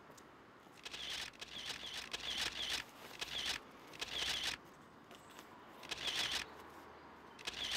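Sheets of paper rustling and crinkling as they are unfolded and handled, in about five short bursts.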